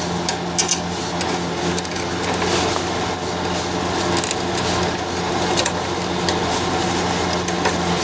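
Screwdriver turning small bolts into the pre-threaded holes of a metal side-stand foot plate, with light scraping and a few faint clicks of metal on metal, over a steady background hum.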